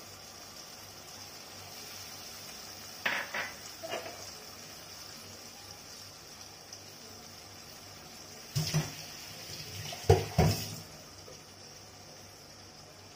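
A mixer-grinder jar is knocked against the rim of a metal kadai to shake out ground paste: a few sharp clanks about three seconds in and a louder set around nine to ten seconds in. Underneath, onions frying in oil give a steady sizzle.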